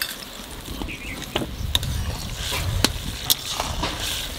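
A steel spoon stirring boiling water and spices in an aluminium kadai: sloshing and bubbling, with about four sharp clinks of the spoon against the pan.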